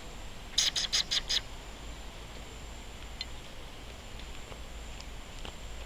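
A bird calls a quick run of five sharp, high notes about half a second in, over a steady faint high-pitched hum.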